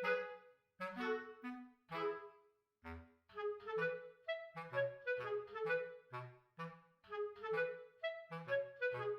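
Light background music: a melody of short, quickly fading notes over a bass line.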